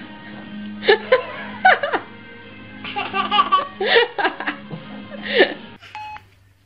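A baby laughing, bursting into several short giggles and belly laughs one after another, over background music that cuts off near the end.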